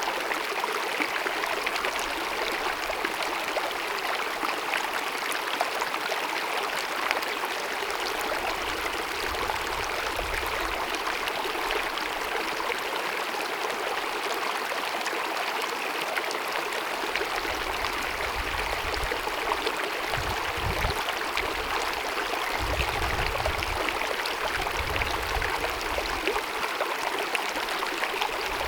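Glacier-fed mountain meadow stream babbling steadily, an even rush of running water with faint low rumbles coming and going underneath.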